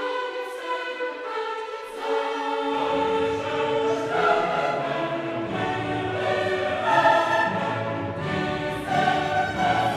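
Live gospel worship music: a male singer with a band of keyboards, electric guitars, bass and drums. The first few seconds hold only singing and higher instruments; the bass and drums come in about three seconds in.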